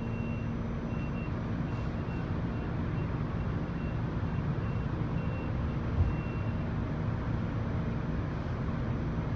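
Steady hum inside an R46 subway car, with a short high electronic beep repeating two or three times a second that stops about two-thirds of the way through. A single thud sounds about 6 seconds in.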